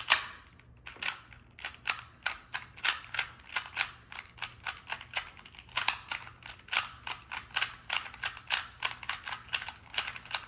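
A plastic 2x2 Rubik's cube being turned fast in a timed speed solve: a run of quick, irregular plastic clacks, several a second, with the sharpest click right at the start.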